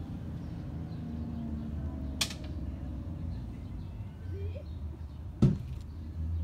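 Low, steady rumble of outdoor background noise, broken by a sharp click about two seconds in and a louder knock about five and a half seconds in.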